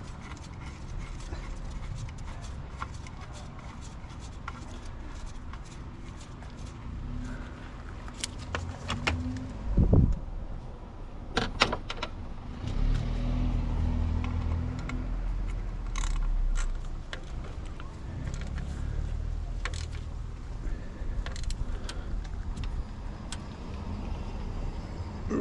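Scattered metallic clinks and taps of hand tools against engine parts while a belt tensioner is being fitted, with one heavier thump about ten seconds in and a low rumble a few seconds later.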